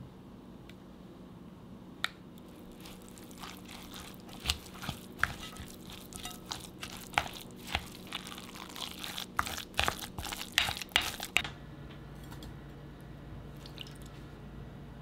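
Kitchen handling sounds: an irregular run of clicks, clinks and light knocks that thickens to the loudest strikes near the end of the run, then stops. A low steady hum sets in about three-quarters of the way through.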